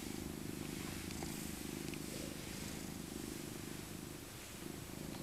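Elderly tabby cat purring steadily, a low rapid rumble that eases slightly about four seconds in.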